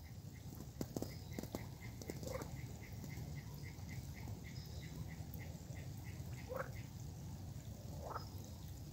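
Wild birds calling: a short high note repeated about four times a second for several seconds, and three short rising calls, the last two near the end. A few sharp clicks about a second in.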